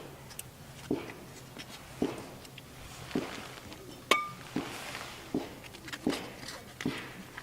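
Repeated sharp knocks, roughly one a second. About four seconds in comes one louder strike with a short metallic ring.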